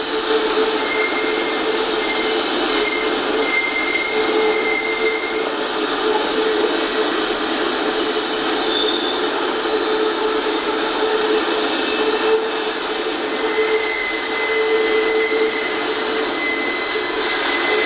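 Double-stack intermodal freight train rolling past: a steady noise of wheels on the rails, with sustained high squealing tones from the wheels.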